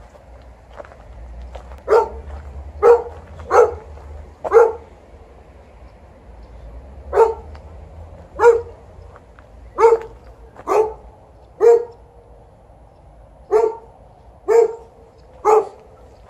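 Golden Retriever barking about a dozen times: single deep barks roughly a second apart, in loose runs with short pauses. They are complaint barks from a dog protesting that its walk has ended.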